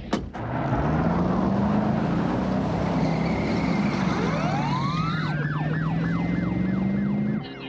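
Police pursuit car engine running hard at speed, with a siren winding up about four seconds in and then wailing in repeated rising sweeps. A sharp click comes just at the start, and the sound cuts off shortly before the end.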